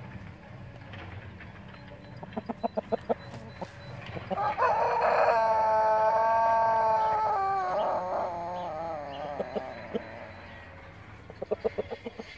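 A rooster crowing: one long crow of about five seconds, held steady and then falling in pitch as it trails off. Quick runs of short clucks come before it and again near the end.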